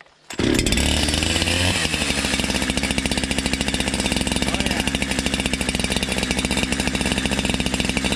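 Brand-new Holzfforma G372XP 71cc two-stroke chainsaw catching on its first start about a third of a second in. It runs higher for about a second and a half, then settles into a steady, evenly pulsing idle while it warms up.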